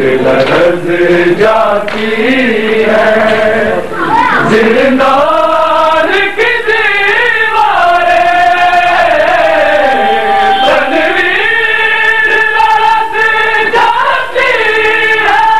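Voices chanting a mourning lament in long held notes that waver and slide up and down in pitch.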